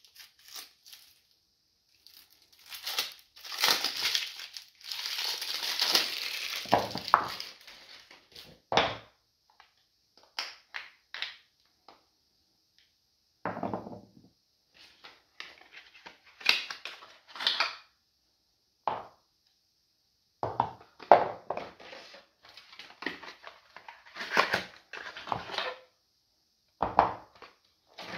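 Plastic shrink-wrap crinkling for several seconds as it is slit and peeled off a bar of soap. After that, bars of soap knock and tap against one another at intervals as they are set down and shuffled on a pile of soaps.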